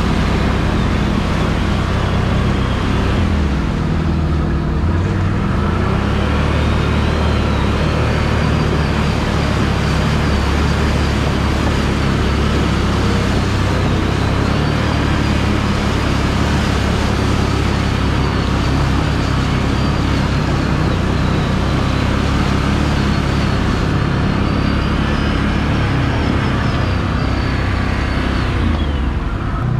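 Can-Am Renegade 1000 ATV's V-twin engine running steadily under way, with water spraying off the tyres as it drives through a shallow muddy creek. A high whine rises and falls over the engine, and the sound changes near the end as the quad leaves the water for a gravel track.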